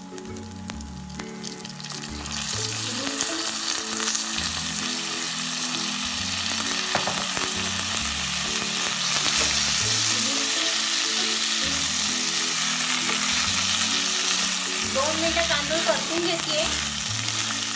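Soaked basmati rice sizzling in hot oil and whole spices in a pot, the sizzle swelling about two seconds in and staying loud. Near the end the rice is stirred with a wooden spatula.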